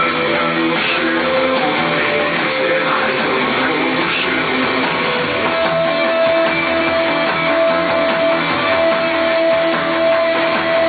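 Live rock band playing an instrumental passage led by guitar, with a long held note from about halfway through that steps up to a higher one near the end.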